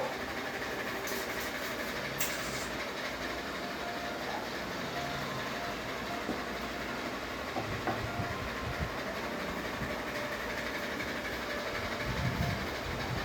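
Ceiling fan running with a steady whirring rush, broken by a few light clicks and some dull knocks near the middle and end.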